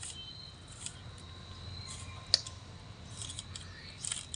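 A 3x3 Rubik's cube being turned by hand: a few irregular plastic clicks as the layers snap round, the sharpest about two seconds in and a small cluster near the end.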